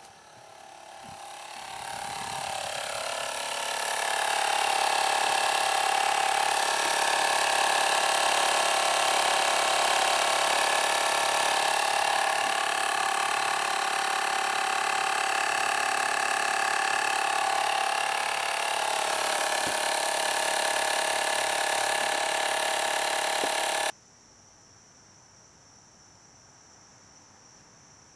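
Slime 12-volt portable tire inflator's compressor running steadily, a whine over a hiss, pumping air through a Schrader valve into the air suspension of a 2003 Mercury Grand Marquis in place of its failed level-ride compressor. It rises over the first few seconds and cuts off suddenly about 24 seconds in, leaving faint crickets.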